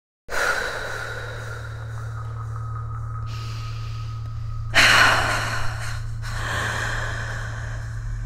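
Heavy human breathing over a steady low drone, starting suddenly just after the start, with a loud sharp gasp about five seconds in.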